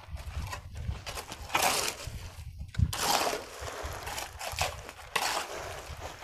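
Wet cement slopped from a metal bucket onto a concrete lid and spread with a trowel, in a few separate swishing, scraping strokes.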